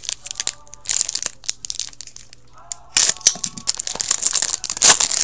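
A foil hockey-card pack wrapper crinkling and tearing in the hands as it is ripped open and the cards are pulled out. The crackling comes in two bursts, the second and louder one about three seconds in.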